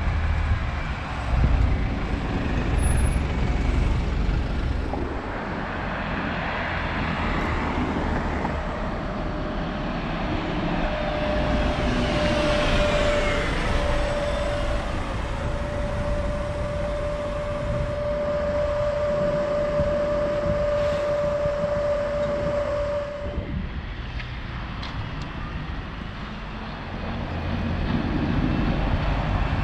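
Road traffic passing close by on a city street: a double-decker bus's engine rumbles past at the start, cars and a taxi van follow, and another bus's engine comes in near the end. Through the middle stretch a steady high whine is held for about twelve seconds, then stops.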